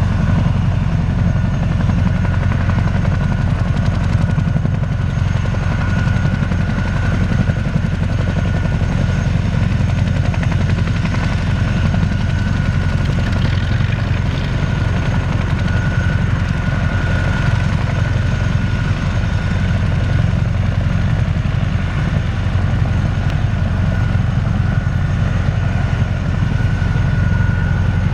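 Boeing CH-47F Chinook running on the ground, its twin turboshaft engines and tandem rotors making a steady low rotor drone with a steady turbine whine above it.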